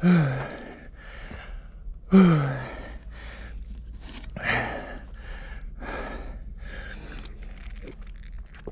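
A mountain biker breathing hard under effort. The first two breaths are voiced, falling groans, followed by a run of heavy panting exhales about once a second.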